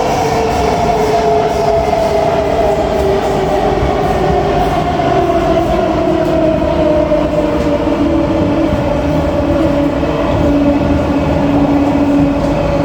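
Kawasaki-Sifang C151B metro train's traction motors whining in two tones that fall slowly in pitch as the train slows, over the steady rumble of wheels on rail.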